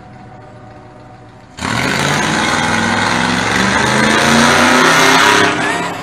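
1983 Dodge D150 pickup running with open headers and no exhaust: a steady idle, then about a second and a half in a sudden full-throttle pull, loud and raw, rising in pitch as it accelerates, easing off near the end.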